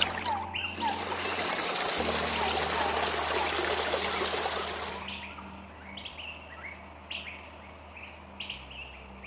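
Running water of a stream trickling for about five seconds, then stopping. Small birds chirping in short, quick calls follow, over a low sustained background-music tone.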